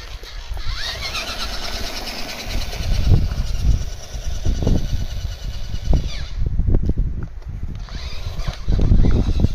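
The two 380 electric motors of an FTX Ravine 1/10 RC rock crawler whining as it drives on tarmac. The whine rises in pitch about a second in as it speeds up, drops out for a moment past the middle and comes back near the end, over an uneven low rumble.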